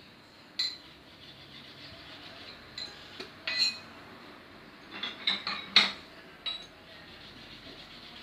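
Hand tools and metal parts clinking and knocking during the disassembly of a car AC compressor: about ten sharp strikes with a brief ring, bunched in the middle, the loudest a little under six seconds in.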